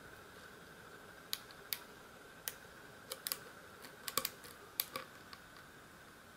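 Steel lock pick clicking irregularly against the pins of a euro-profile cylinder held under tension: about a dozen light, sharp metallic clicks, several bunched together around the middle, as the pins are pushed up one by one.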